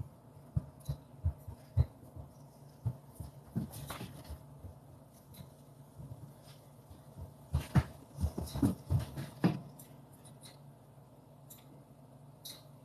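Irregular knocks and bumps from handling tools and wire against a kayak's hull, a few in the first couple of seconds and a busier run about halfway through, over a steady low hum.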